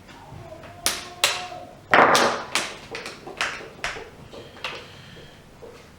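A series of sharp plastic clicks and taps, about a dozen spread irregularly, from handling the reassembled laptop, with one louder knock about two seconds in.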